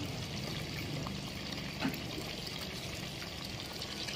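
Hot oil bubbling and sizzling in a deep-fry pot, a steady hiss with a few faint crackles.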